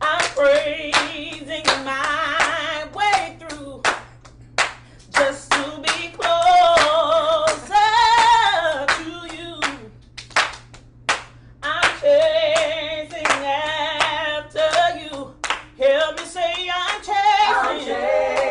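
Several voices singing a cappella in long notes with vibrato over steady hand clapping that keeps the beat. The singing drops out twice, leaving the claps alone for a moment.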